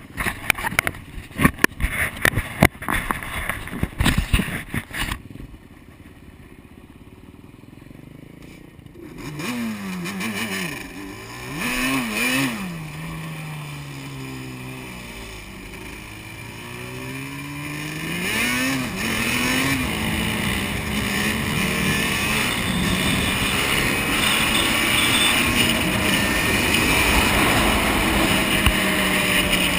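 Knocks and rattles from the camera being handled for the first few seconds. Then the two-stroke twin engine of a Yamaha Banshee quad revs up and down in several throttle blips and settles into a steady, louder pull as the quad rides off.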